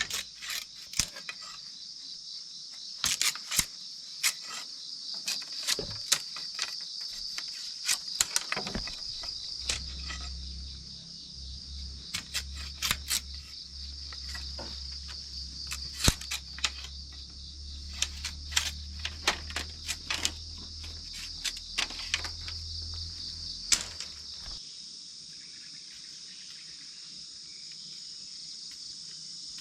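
A steady, high-pitched chorus of crickets, with irregular sharp knocks and clicks for most of its length. A low hum comes in about ten seconds in and stops suddenly a few seconds before the end.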